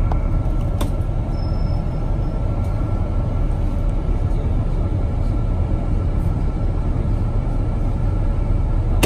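Steady low rumble of a moving road vehicle heard from inside the cabin: engine and tyre noise, with a faint steady high tone over it and a couple of light clicks.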